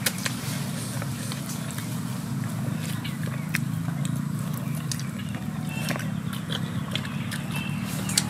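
Eating sounds of grilled fish and sticky rice being chewed: scattered lip smacks and mouth clicks, a few sharper ones, over a steady low hum.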